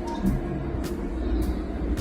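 Steady low rumble of a jet's cabin in flight, with music playing over it; its beat ticks a little under twice a second.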